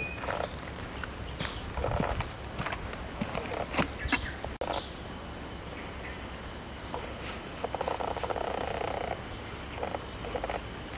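A steady, high-pitched chorus of tropical insects.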